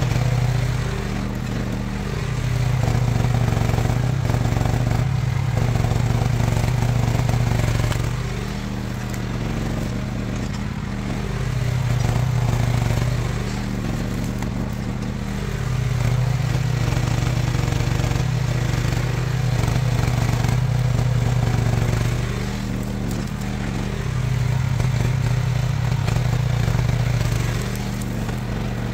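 Diggit EM15 mini excavator's engine running, its note rising and easing every few seconds as the machine works.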